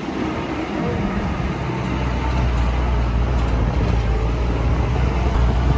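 Motor vehicle engine running steadily on a rough dirt road, a low drone under a haze of tyre and road noise; the drone grows steadier and stronger about two seconds in.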